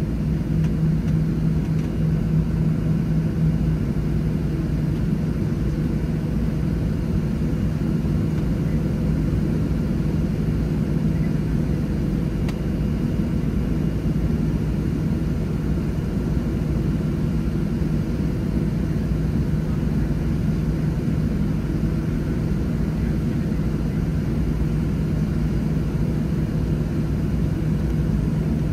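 Steady cabin rumble and hum inside a Boeing 737-700 during pushback, with a constant droning tone that is a little stronger for the first few seconds.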